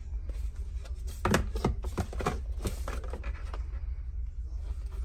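Pet-product packaging handled in the hand: a plastic wipes canister and a small cardboard box give a cluster of clicks and rustles in the middle, over a steady low hum.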